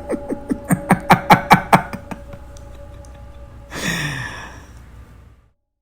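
A man laughing: a run of short, falling 'ha' bursts that build in loudness and stop about two seconds in, followed near four seconds by a single breathy, falling sigh.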